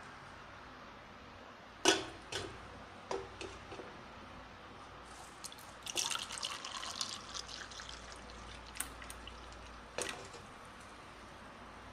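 Carrot juice poured from a steel vessel into a steel tumbler: a splashing trickle for a second or two about six seconds in. Around it are sharp clinks and knocks of the steel vessels, the loudest about two seconds in and others near the end.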